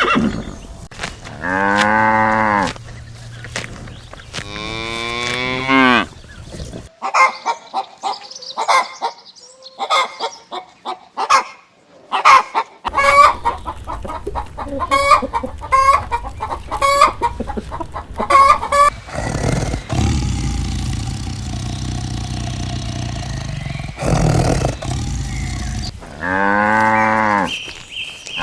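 Farm animal calls: cows mooing, long calls near the start and again near the end, with a long run of short chicken clucks in between.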